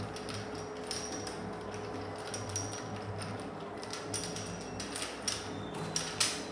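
Irregular clicks and light knocks of standing-fan base parts being handled and fitted together, the sharpest few in the second half, over a steady low background hum.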